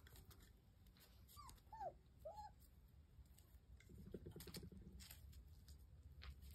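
Faint whimpering from puppies: three short, high squeaks that rise and fall, a little under two seconds in, then a brief low growl about four seconds in.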